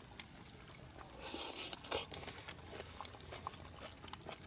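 Faint eating sounds at a hot pot: thin metal chopsticks lifting napa cabbage from the pot, with a few light clicks and broth dripping back. There is a short hiss about a second and a half in.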